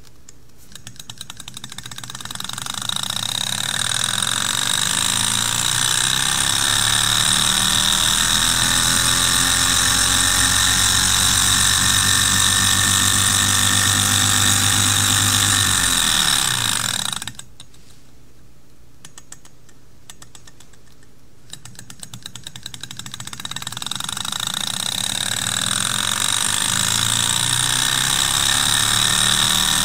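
Small model Stirling engine started by a flick of its brass flywheel, its clicking quickening into a fast, steady mechanical running with a high ringing tone. About two-thirds through it slows, cuts off suddenly, then spins up again to the same steady speed.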